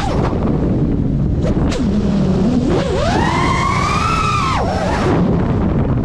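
FPV drone's electric motors and propellers whining, the pitch falling away as the throttle is cut at the start. It then climbs again from about two seconds in to a high whine and drops near five seconds, over heavy wind rumble on the camera microphone.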